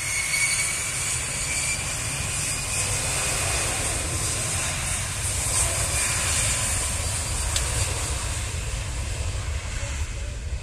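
Gulfstream G650ER business jet's twin Rolls-Royce BR725 turbofans running steadily as the jet rolls on the runway, a deep rumble under a broad jet hiss. A whine rises in pitch in the first second or so.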